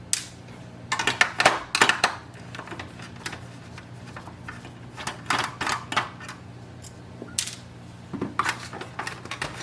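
Clicking and light plastic-and-metal clatter of a screwdriver backing out screws and hands working the printer's plastic front plate loose, in several short bunches of clicks over a steady low hum.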